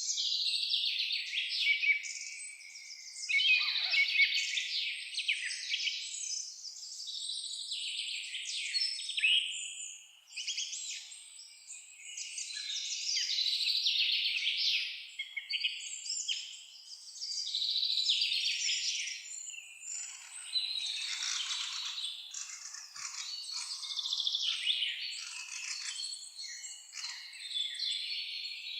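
A chorus of songbirds, many high chirps, trills and whistles overlapping without a break, swelling and easing, with a short lull about ten seconds in.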